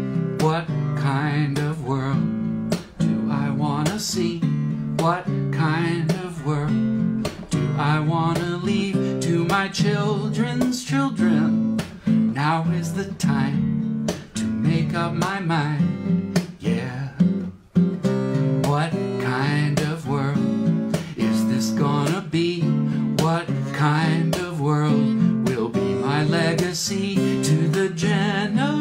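Acoustic guitar strummed in a steady rhythm, accompanying a man singing a song.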